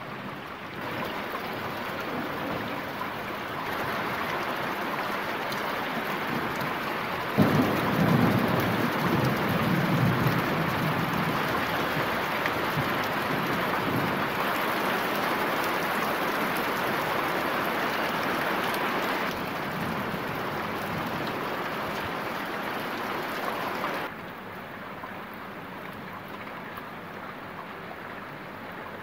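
Thunderstorm rain falling steadily. About seven seconds in, a sudden clap of thunder rumbles on for a few seconds. Near the end the rain suddenly drops to a quieter level.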